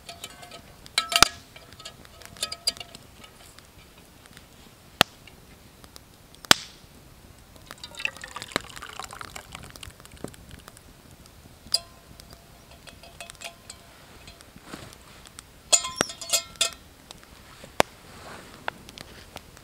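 Stainless steel camping pots clinking and ringing as they are handled, then thick soup poured from one pot into a smaller pot. A further cluster of metal clinks comes near the end.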